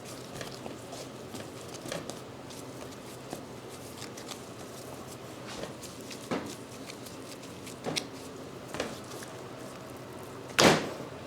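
Knife and beef tenderloin being handled on a cutting board: scattered light knocks and taps, with one louder thump near the end.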